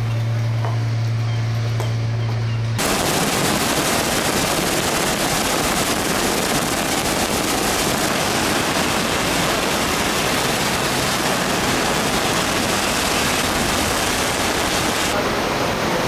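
Creek in flood after torrential rain, its muddy water rushing in a loud, dense, steady roar that comes in abruptly about three seconds in. Before that, a steady low hum.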